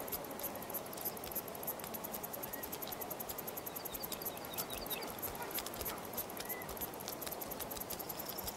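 Faint outdoor natural ambience: rapid, irregular insect-like ticking over a steady hiss, with a few short high chirps.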